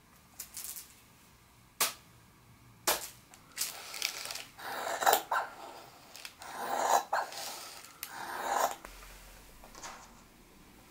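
Dressmaking shears cutting fabric along a tissue-paper pattern. A couple of sharp clicks come first, then several long cutting strokes with the paper rustling.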